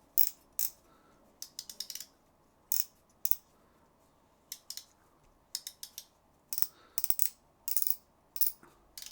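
The newly fitted drag clicker of a Piscifun Alloy M baitcaster reel, clicking in short runs of quick, sharp clicks with pauses between. It is very clicky.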